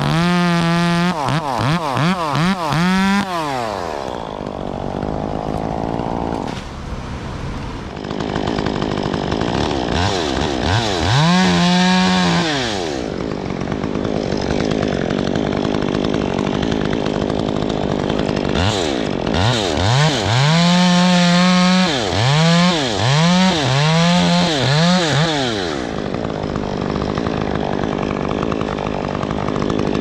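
Chainsaw revving in quick throttle blips three times, each burst rising and falling in pitch, sometimes held at full speed for about a second. A steady engine noise runs between the bursts.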